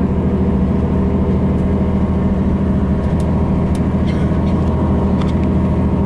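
Tour bus engine and road noise heard from inside the cabin while driving: a steady low drone without revving, with a few faint ticks.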